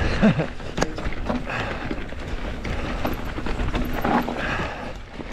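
Mountain bike riding fast over rocks: tyres crunching on rock and dirt while the bike clatters in quick irregular knocks.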